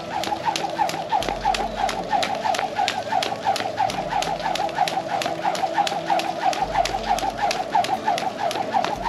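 Skipping rope turned fast in plain forward skipping: a rapid, even rhythm of sharp ticks as the rope strikes the concrete roof on each turn, over a steady whirring of the rope through the air.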